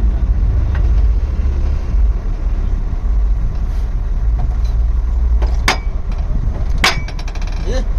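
An engine running steadily, its sound mostly low-pitched, with a few sharp clicks over it.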